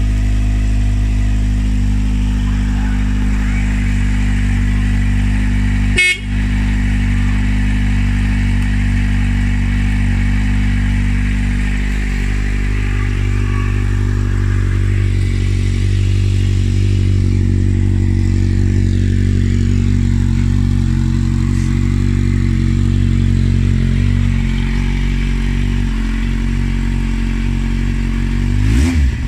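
Kawasaki Z750R's inline-four engine idling steadily, with one brief knock about six seconds in. Near the end the revs rise and fall as the throttle is blipped.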